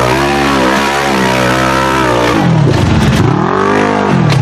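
Off-road vehicle engine revving hard. Its pitch holds steady at first, then dips and climbs back up twice in the second half.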